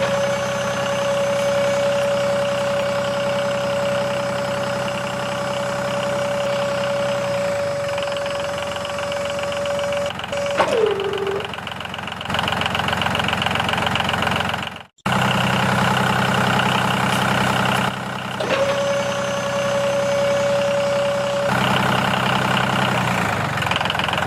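A small motor running steadily with a high whine, which briefly drops in pitch about ten seconds in; the sound cuts off suddenly about fifteen seconds in and then resumes.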